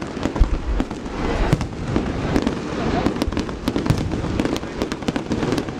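Fireworks display: a dense run of sharp cracks and bangs, several a second, over low booms.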